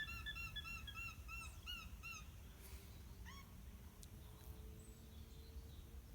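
Alpaca alarm calls: a run of high-pitched repeated calls, about four or five a second, fading out over the first two seconds, then one last rising call a little after three seconds in.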